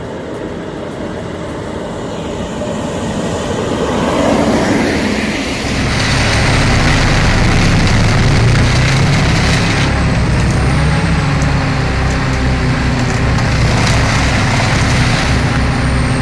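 Heavy log truck's diesel engine, coming up louder over the first few seconds and then running loud and steady from about five seconds in.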